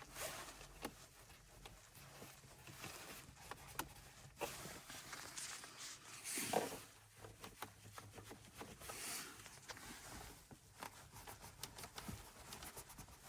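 Faint scattered clicks and short rubbing noises from a Volkswagen Touareg's plastic centre console and dashboard trim being pressed and flexed by hand. The creak where the console meets the dash is gone after lubricating the joint.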